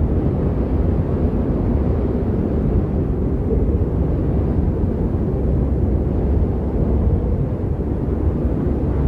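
Snowstorm ambience sound effect: a steady, low rumbling roar with no distinct events.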